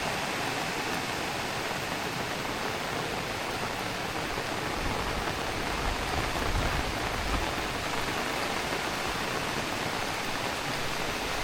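Heavy rain falling steadily, with a brief low rumble about halfway through.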